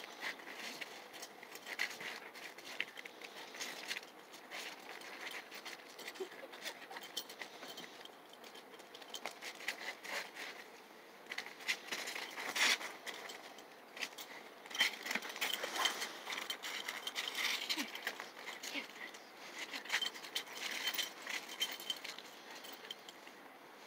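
Irregular small clicks and crunches of broken ice and grit on asphalt, scuffed under boots and a dog's paws, with a few louder cracks in the middle.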